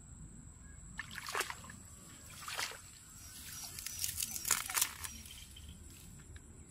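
Shallow muddy water sloshing and splashing as a plastic bottle trap is pushed into place by hand, with a few sharp knocks and trickles; the busiest splashing is around the middle of the clip.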